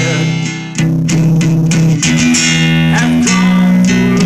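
Acoustic guitar being strummed, chords ringing out with a fresh strum about every second.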